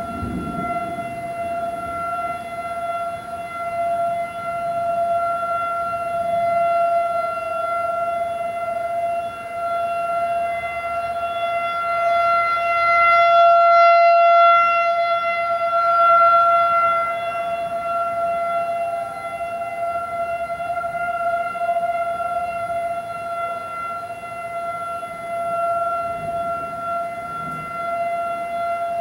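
Federal Signal 2001-AC electromechanical warning siren sounding one steady, unwavering high tone, swelling louder around the middle and then easing back.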